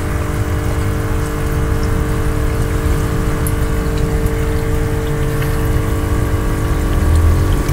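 An electric pump hums steadily over a low rumble, with a few small water drips and splashes on top.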